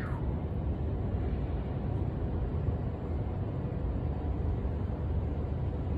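Steady low rumble of outdoor city background noise, heavy in the bass and unchanging, with a short falling whistle right at the start.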